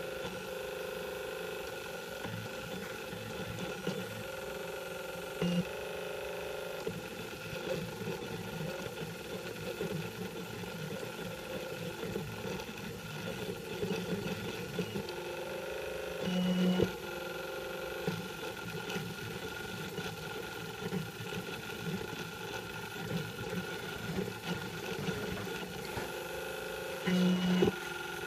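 M3D Micro 3D printer printing, its stepper motors whining and buzzing steadily as the print head moves. Short, louder buzzes come about five, sixteen and twenty-seven seconds in.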